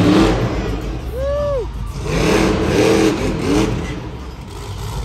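Monster truck engine running with a heavy low rumble in an echoing indoor arena as the truck drives over crushed cars. Voices call out over it, one rising and falling about a second in.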